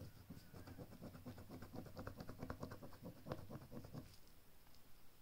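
Faint rustling and light scratching of paper being handled, a quick run of small ticks that stops about four seconds in.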